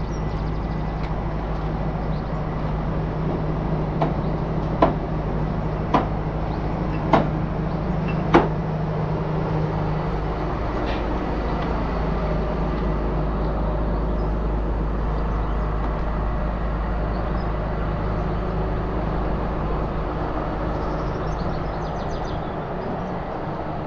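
A steady low engine drone, with five sharp knocks about a second apart between roughly 4 and 8 seconds in.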